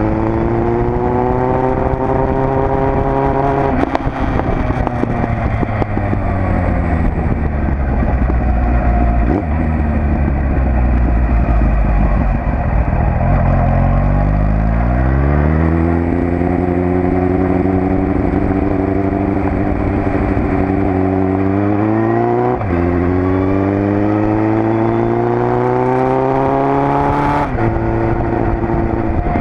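Suzuki Bandit 1200 S inline-four engine under way, pulling up through the gears. Its pitch climbs, drops at a shift a few seconds in, and runs low and rough for a while. It then climbs again, with two more shifts in the second half.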